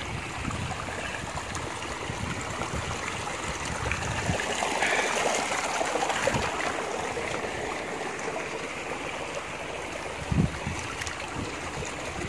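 Shallow stream of clear water running and trickling over rocks. A brief low thump comes about ten seconds in.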